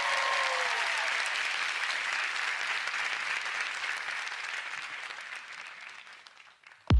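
Studio audience applauding and cheering, with a few whoops at first, the applause slowly dying away. Right at the end a single deep drum hit sounds as the song begins.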